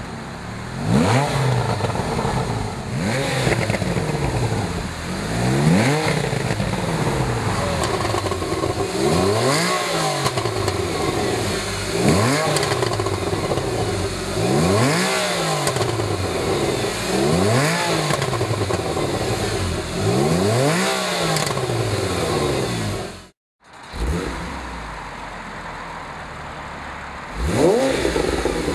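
Porsche 991 Carrera S flat-six revved repeatedly while stationary, with a blip about every three seconds on the stock exhaust. After a sudden cut the car idles more quietly, then revs again near the end on the Fabspeed Valvetronic performance exhaust.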